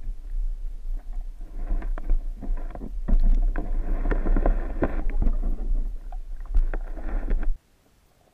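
Underwater camera being lowered through lake water: a heavy low rumble of water and handling noise against the housing, with many clicks and knocks. The noise cuts off abruptly about seven and a half seconds in, as the camera comes to rest on the lake bed.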